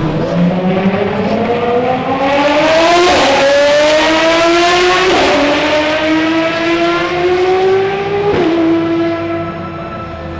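Race car engine accelerating through the gears: the pitch climbs steadily and drops with an upshift about three seconds in, again about five seconds in and again about eight seconds in, then holds steady.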